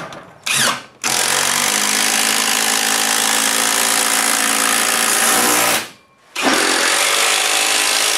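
Cordless drill driving screws through a garage-door rail bracket into the wall: a short spin about half a second in, then two long runs under load, the motor's pitch slowly falling during the first, with a brief pause about six seconds in.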